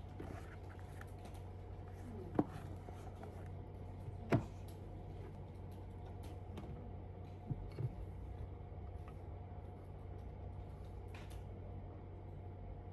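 Quiet room tone with a steady hum, broken by a few light knocks: one about two seconds in, one a little after four seconds, and two close together near eight seconds.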